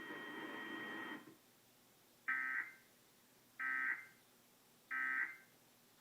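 EAS end-of-message data bursts: three short, buzzy bursts of encoded tones a little over a second apart, signalling the end of the alert. A steady background hum stops about a second in.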